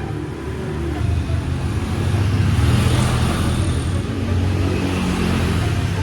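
A road vehicle passing by: broad traffic noise swelling to a peak midway and easing off, over a steady low hum.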